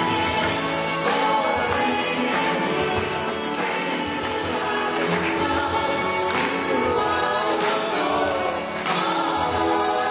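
Voices singing a Christian praise song together with instrumental backing, in a steady beat.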